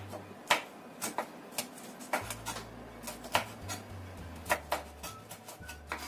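Kitchen knife slicing small chilies into rounds, the blade tapping the cutting board in quick, uneven strokes, about two to three a second.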